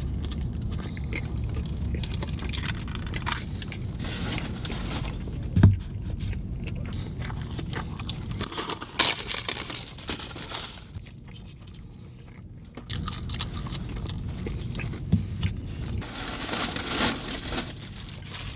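Close-up sounds of a person biting and chewing fried fast food, with scattered small crunches and clicks. A low steady hum runs underneath and fades about halfway through.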